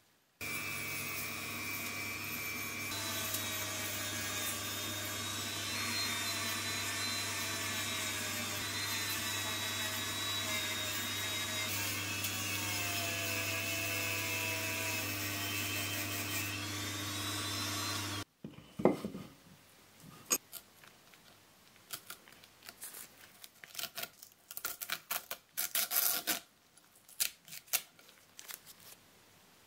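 A handheld rotary tool runs steadily against a die-cast metal toy baseplate, its whine wavering slightly in pitch as it bears on the metal, then cuts off abruptly about 18 seconds in. After that, a cloth rubs polish paste over the metal base in short, irregular scraping strokes.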